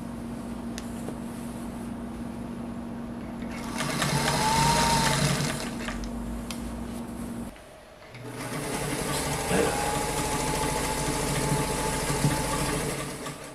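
Vintage Singer electric sewing machine stitching quilting lines through the layers of a quilt. It runs steadily, speeds up and gets louder about four seconds in, stops briefly about halfway, then runs fast again until it slows and stops near the end.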